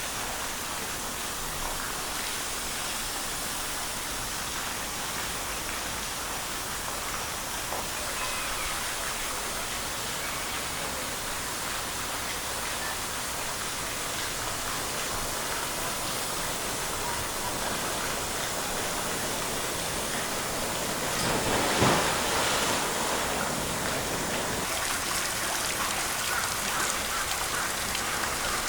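Steady rushing water noise, with a brief louder rush about twenty-two seconds in.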